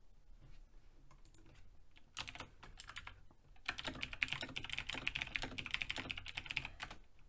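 Typing on a computer keyboard: a few light keystrokes at first, then a fast, steady run of key clicks from about two seconds in, busiest in the second half.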